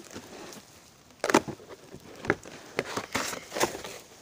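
A sheet of birch bark crackling and rustling as it is peeled off the trunk and handled: a run of irregular, sharp, dry crackles, the loudest about a second in.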